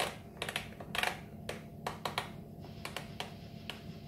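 Thermomix TM5 selector dial clicking as it is turned to set the timer: an irregular string of sharp ticks, about three a second, that thins out and stops near the end.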